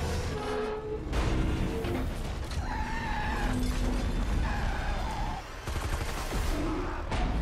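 Action-film sound mix: a tanker truck crashing and its metal scraping along the road, with gunfire, over film score music with held notes.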